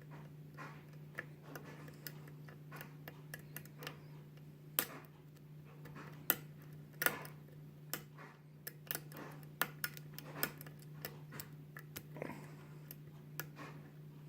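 Metal lock pick working the wafers of a small 5-pin wafer lock under tension: irregular light ticks and sharp clicks as single wafers are lifted and set. A steady low hum runs underneath.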